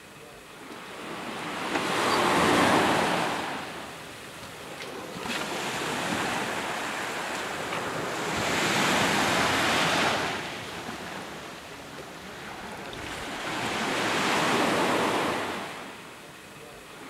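Small sea waves breaking and washing up a sandy shore, the surf swelling and ebbing in three slow surges every five to seven seconds.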